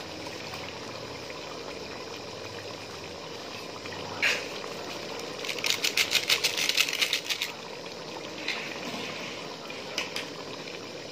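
Chicken curry simmering in an aluminium pot with a steady bubbling. Past the middle, a spoon scrapes and clinks against the pot in a quick flurry for about two seconds as the curry is stirred, with a few single clicks before and after.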